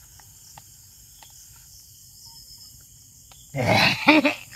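Crickets chirping steadily at night, with a few faint ticks; about three and a half seconds in a man lets out a loud, harsh vocal outburst lasting under a second.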